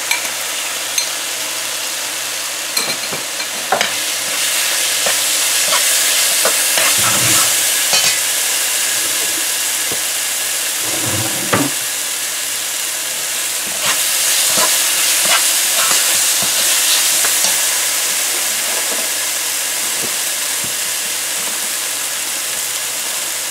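Curry paste with chopped onion, scallions and hot pepper sizzling in hot oil in a metal pot, frying to release the spices' aromas. A slotted metal spoon stirs it, clicking and scraping against the pot now and then.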